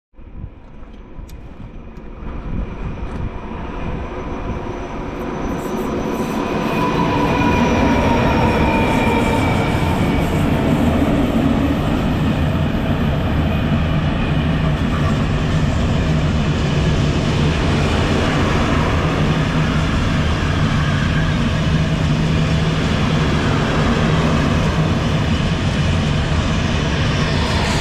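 A freight train passing, hauled by a pair of class 753 diesel locomotives. The locomotives' engines grow louder as they approach, their tone dropping in pitch as they go by about seven seconds in. After that the loaded open freight wagons roll past with a steady, loud rumble and clatter of wheels on rail.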